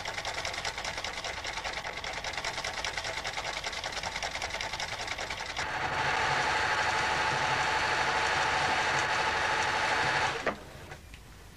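Mechanical cam-driven fancy-stitch sewing machine running with a rapid, even clatter. It grows louder about halfway through, then stops abruptly near the end.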